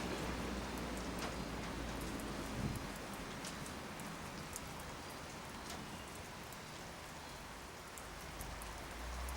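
Steady rain falling, with scattered drops striking close by. A train's low rumble dies away about three seconds in.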